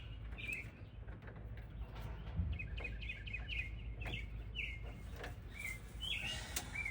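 Small birds chirping, short high chirps repeated every second or so, over a low steady hum with a few faint clicks.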